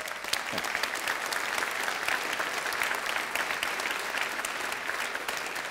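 Large audience applauding steadily, a dense patter of many hands clapping.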